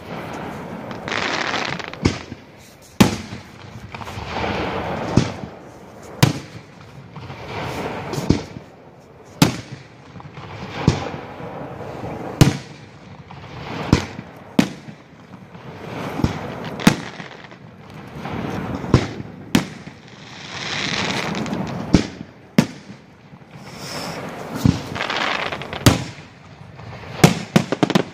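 Aerial fireworks shells bursting in a display: a quick run of sharp bangs, about one every second or so, with a rushing noise swelling and fading between them.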